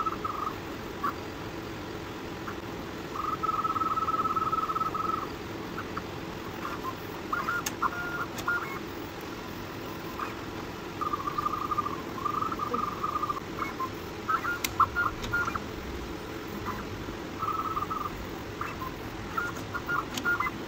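Original Prusa XL 3D printer at work: its stepper motors sing in short stretches of steady high-pitched tone that start and stop abruptly as the print head moves, over a steady fan hum, with a few sharp clicks.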